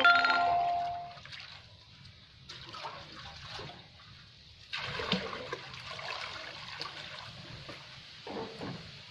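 A metal bowl rings briefly as it is knocked at the start. Then water with soaking cattle-feed pellets is scooped and poured from the bowl into plastic basins, splashing, louder from about halfway through.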